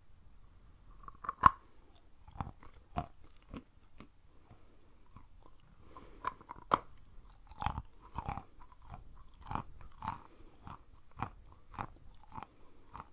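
Close-miked biting and chewing of big crumbly chunks of white chalk. One sharp, loud bite-off about one and a half seconds in, then dull, muffled crunches about twice a second as the pieces are chewed.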